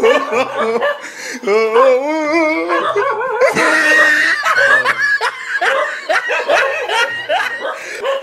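Dubbed-in laughter, long wavering laughs running on and on, with a short burst of hiss about three and a half seconds in.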